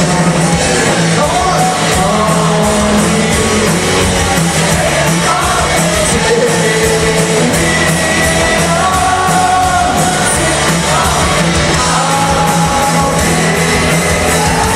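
Live rock covers band playing, a singer's voice carried over the band and a steady drum beat.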